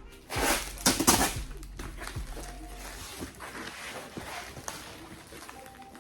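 Soft styrofoam packaging rustling and scraping as pieces are pulled out of the box, loudest in a few bursts about half a second to a second in.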